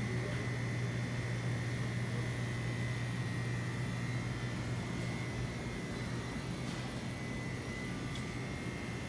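Steady low mechanical hum with a thin, steady high whine: the background drone of a supermarket's building equipment.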